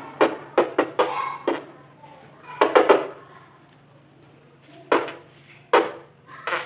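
Hands slapping puffed-out cheeks, each slap a sharp pop as the air bursts out, about a dozen in irregular clusters, several close together near the start and around three seconds in.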